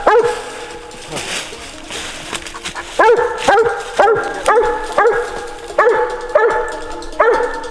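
Squirrel dog barking treed, a hunting hound's tree bark: one bark at the start, then after a pause a steady run of sharp barks about two a second.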